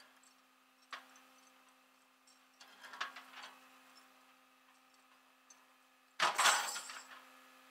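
Metal clinks and rattles of a tow truck's winch hook and chain being handled and hooked to a vehicle: a single click about a second in, a short run of clinks around three seconds, and a louder rattle of chain near the end. A steady low hum runs underneath.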